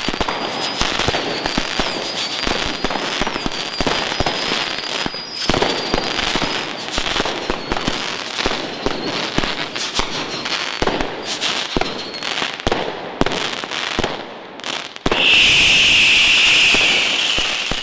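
Firecrackers and fireworks going off in rapid, irregular succession: a dense run of bangs and crackles, with a thin high whistle over the first six seconds or so. About fifteen seconds in, after a brief lull, a loud steady hiss takes over for about two and a half seconds.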